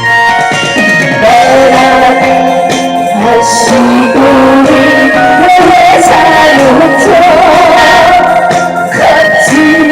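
A woman singing over loud backing music, her long held notes wavering with vibrato.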